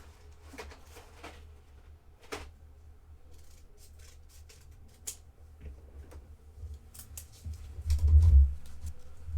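Small clicks and rustles of trading cards and their plastic holders being handled on a table, with a low thump about eight seconds in.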